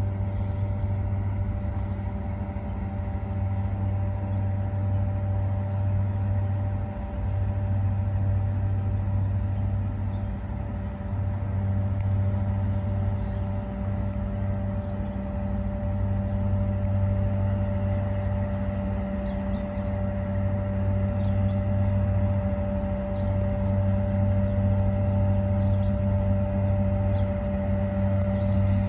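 River towboat's diesel engines running steadily as it pushes a loaded barge tow, a continuous low drone with a steady hum.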